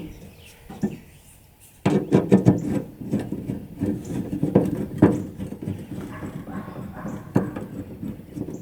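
Rapid, irregular clicking of a hand tool as a bolt is unscrewed from a truck's tailgate handle. The clicking starts about two seconds in.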